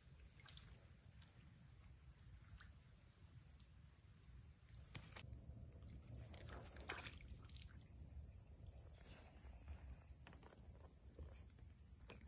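Near silence: faint outdoor ambience, with a steady high insect hum over a low rumble and a few faint clicks. The hum gets stronger about five seconds in.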